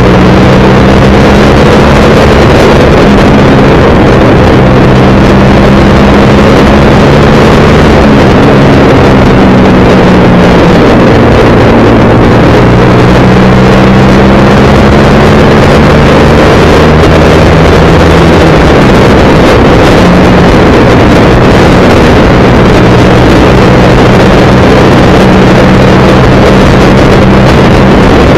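Motorcycle engine running at a steady cruise, heard loud from on the bike, its pitch drifting slightly down and up a few times, with wind rushing over the microphone.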